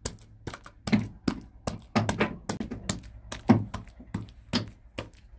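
A run of irregular sharp taps and knocks, two or three a second, each short and sudden.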